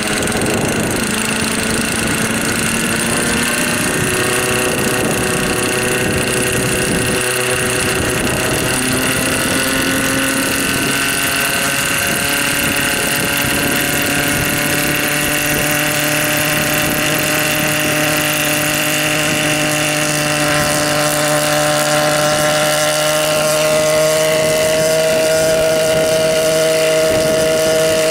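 Helipse HE 300 unmanned helicopter's 121.6 cc two-stroke engine running with its rotors turning. The engine note climbs gradually as the rotors spool up to lift off.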